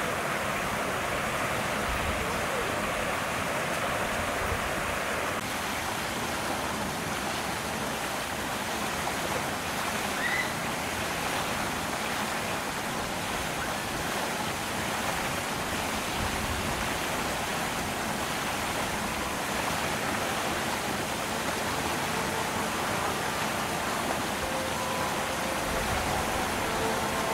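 Steady outdoor background hiss with faint, indistinct human voices mixed in; no sound from the chimpanzees stands out.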